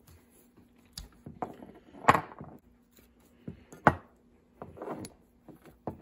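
Small metal derailleur parts being handled and knocked against a wooden workbench: a handful of sharp clicks and knocks, the loudest about two seconds in, with light rustling between them.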